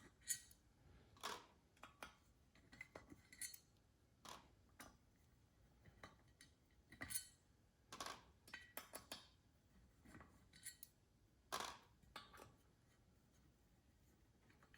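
Light metallic clicks and clinks, irregular and spaced out: a hex key working small screws out of an LED par light's metal housing, with the loose screws being handled.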